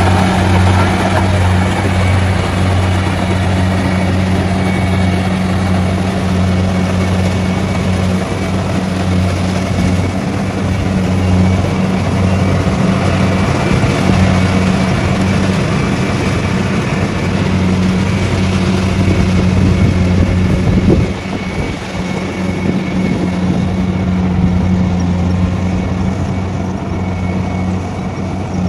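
Rice combine harvester running steadily under load as it cuts and threshes rice: a constant engine hum with machinery clatter and rattle over it. It gets somewhat quieter about 21 seconds in.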